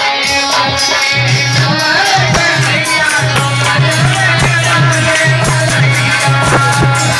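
Rural North Indian folk dance song (dehati nach geet) playing loud: a singing voice over a steady drum beat with rattling jingles and a pulsing bass line.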